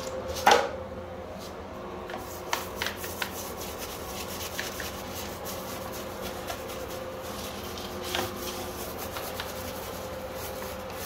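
Toilet brush scrubbing inside a toilet bowl: scratchy bristle strokes with light knocks against the porcelain. A sharp knock about half a second in as the brush comes out of its holder. A steady low hum underneath.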